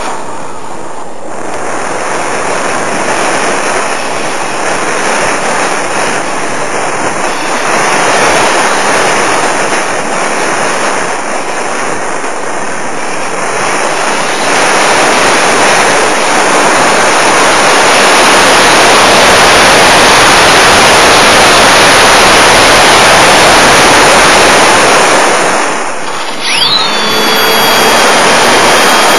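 Model airplane in flight, heard through its onboard camera's microphone: a loud, steady rush of airflow and motor noise. About 26 seconds in it dips briefly, then a high steady whine comes in and holds.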